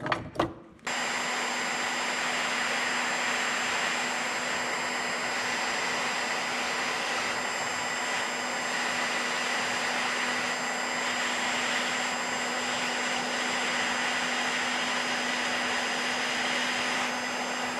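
Heat gun running steadily, blowing hot air to shrink heat-shrink tubing over a soldered ring-terminal wire connection. It switches on about a second in, runs as an even blowing noise with a low hum, and shuts off near the end.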